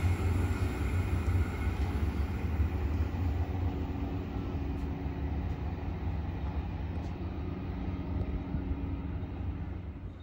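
Queensland Rail electric passenger train running away along the track, its rumble fading steadily as it recedes.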